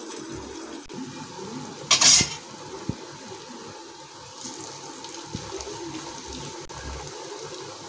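Lotus-stem and potato kababs deep-frying in hot oil in an iron kadhai, with a steady bubbling sizzle. A brief louder burst of sizzle comes about two seconds in, as another kabab goes into the oil.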